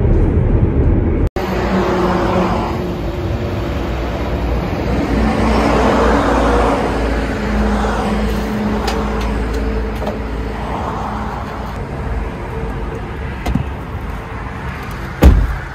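Road traffic passing: three cars in turn, each swelling and fading over a steady low engine hum. A sharp, loud thump near the end as a car door shuts.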